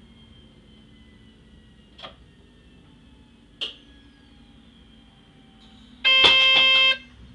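Low running noise inside a train's driver's cab, with two brief squeaks, then a loud, steady signal tone lasting about a second, near the end.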